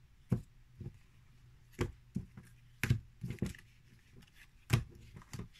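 A deck of oracle cards handled on a table as cards are drawn: about nine irregular soft taps and slaps of card against card and table.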